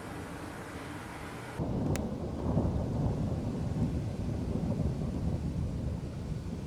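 Rolling thunder: a low rumble that sets in suddenly about a second and a half in and rolls on for several seconds from a thunderstorm with near-continuous lightning.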